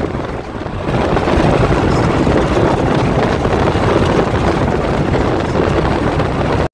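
Steady road and wind noise inside a Ford's cabin while it cruises at highway speed, easing briefly about half a second in.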